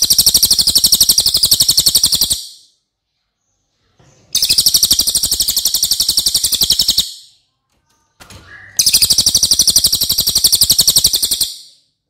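A cililin songbird singing its rapid-fire 'nembak' song: three long, fast trills of high, evenly repeated notes, each lasting two to three seconds, with short pauses between them.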